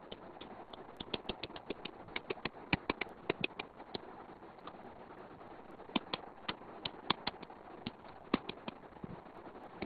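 Stylus clicking on a tablet's glass screen while writing by hand: two runs of quick, irregular clicks, the second starting about six seconds in.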